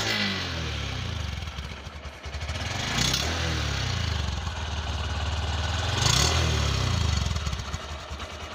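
Honda SP125 motorcycle's 125 cc single-cylinder engine running at idle through its stock silencer. The throttle is blipped twice, about three seconds apart, with the exhaust note rising and falling back each time.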